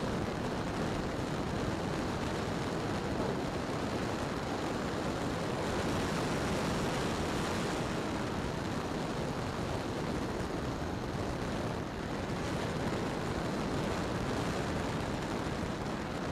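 E-flite Timber X electric RC plane in flight: a steady, even rushing noise of the plane and the air, with no distinct motor tone.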